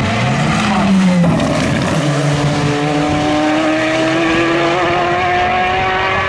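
Glickenhaus SCG 007 LMH race car's 3.5-litre twin-turbo V8 passing and pulling away at full throttle. The note falls as it goes by, changes sharply about a second in, then holds a steady, slowly rising pitch as it accelerates away.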